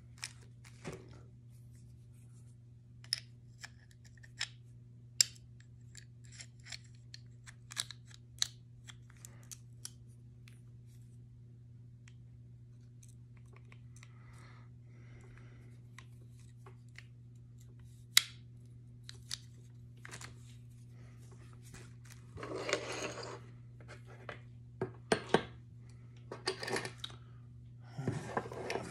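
Small metal clicks and scrapes of Colt Pre-Woodsman pistol parts being handled as the hammer strut is worked onto the mainspring, with scattered sharp clicks and a few short scraping patches near the end, over a steady low hum.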